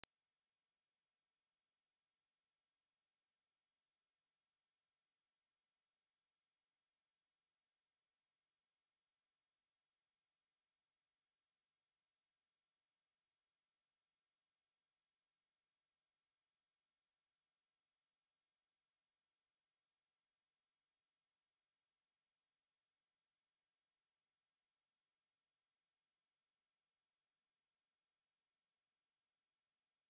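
A pure 7881 Hz sine-wave test tone: a single steady high-pitched whistle held at constant level, with nothing else.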